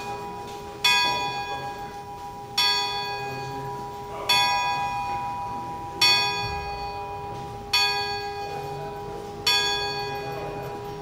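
Clock-tower bell struck six times at an even, slow pace, about one stroke every 1.7 seconds, each stroke ringing on and fading into the next.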